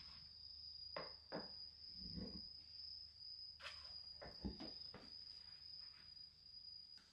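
Faint knocks and low clunks of a metal-framed swivel chair being handled: the seat fitted down onto its base column and the chair set on the carpet, with a few separate knocks and two duller thuds. A steady high-pitched tone runs underneath.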